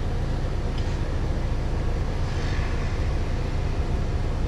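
City bus engine idling, heard from inside the passenger cabin: a steady low hum.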